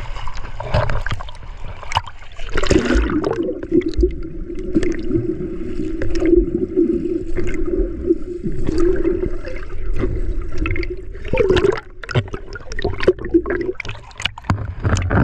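Sea water splashing around a swimmer. About two and a half seconds in, the sound turns muffled as the action camera goes underwater, with a steady low hum and gurgling. Near the end it breaks back into choppy splashing as the camera surfaces.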